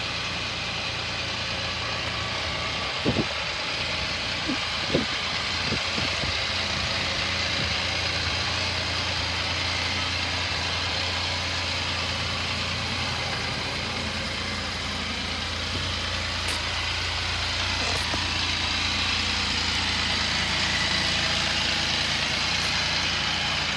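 Engine of a 2021 Can-Am Spyder three-wheeler, a Rotax 1330 inline three-cylinder, idling steadily. A few short knocks come about three to five seconds in.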